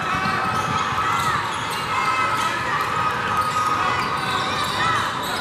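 Basketball dribbled on a hardwood court during youth game play, with several short sneaker squeaks and a background of spectators' voices in a large gym.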